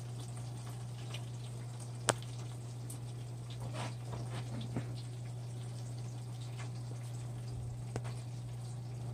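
Rendered duck fat crackling and popping faintly in a hot roasting pan, with small scattered pops and one sharp click about two seconds in, over a steady low hum.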